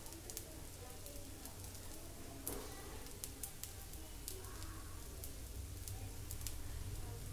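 Dosa batter sizzling on a hot tawa, with scattered small crackles and pops over a low steady rumble.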